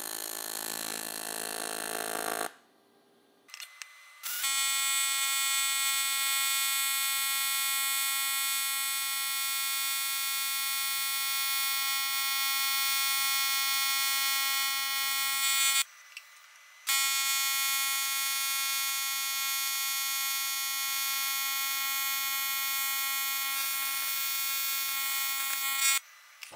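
AC TIG welding arc on an aluminum bicycle swing arm, a steady high-pitched buzz as the cracks are welded up. The arc runs for about eleven seconds, breaks off for about a second, then strikes again and runs until near the end.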